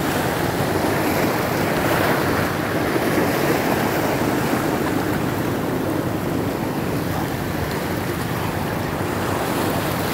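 Steady rush of sea waves and wind, with wind buffeting the microphone.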